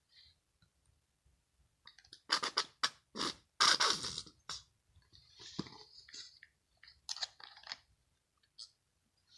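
Slime being worked by hand, with wet squishing, crackling and popping in irregular clusters, loudest about two to four seconds in.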